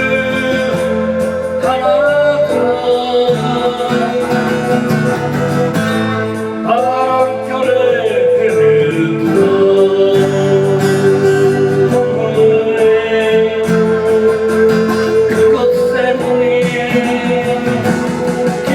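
A voice singing a slow Korean folk ballad over guitar accompaniment, with long held notes.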